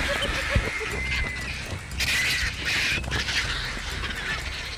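Vultures squabbling, squawking and hissing, with a louder, noisier flurry about two seconds in. A short run of quick spotted hyena giggles right at the start.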